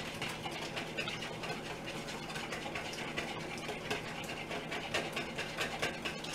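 Wire whisk beating eggs in a bowl: a fast run of light clicks and scrapes as the whisk hits the bowl while melted butter is drizzled in to temper the eggs.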